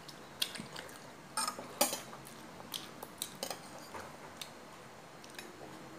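Cutlery clinking against a bowl during a meal: a series of short, sharp, irregularly spaced clicks, quiet overall.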